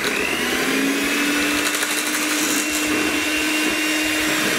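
Electric hand mixer running steadily, its beaters whipping cream with condensed milk in a stainless steel bowl. The motor whine rises a little as it comes up to speed in the first half second, then holds steady.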